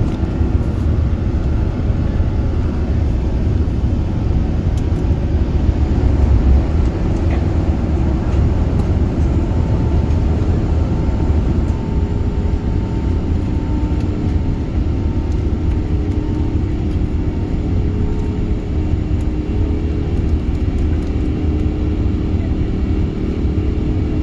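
Airbus A380 cabin noise: a steady low rumble of the engines and airflow, with a faint engine tone coming in about halfway through.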